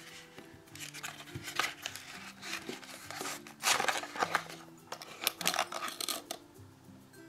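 Small cardboard toy box rustling and scraping as it is opened and handled, with light knocks of the wooden play-food croutons inside. The loudest scrape comes about four seconds in.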